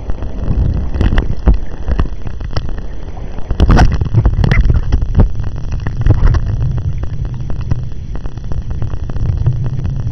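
Muffled low rumble of sea water around a camera held just under the surface while snorkeling, with scattered sharp clicks and knocks, most of them in the first half.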